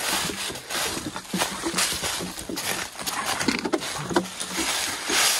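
Footsteps of a hiker walking, with the steady rush of a river behind them.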